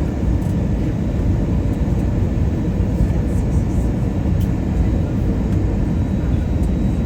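Airbus A320 cabin noise: a steady low rumble of jet engines and airflow, heard from inside the passenger cabin.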